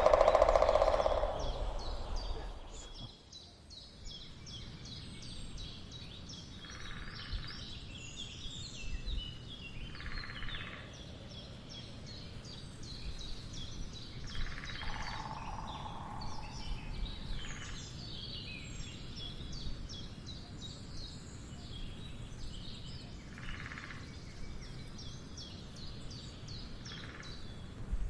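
Woodpecker drumming in short rolls of about a second. One loud roll comes at the start and fainter ones follow every few seconds. Small songbirds chirp steadily throughout.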